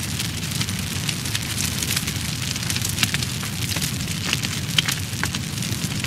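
Fire burning with a steady low rush and many quick crackles and snaps. Two of the snaps, in the second half, are louder than the rest.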